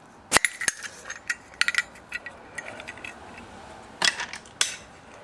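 Small metal clicks and light scraping as the insert is pulled out of a 1939 solid-brass Zippo lighter case: a sharp click, a quick run of small clicks, then two more clicks near the end.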